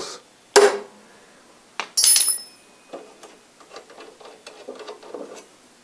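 Ball-peen hammer tapping a steel transfer punch to mark hole centres through a steel plate. One sharp tap comes about half a second in and another near two seconds, followed by a ringing metallic clink. Small light clicks follow as metal parts are handled.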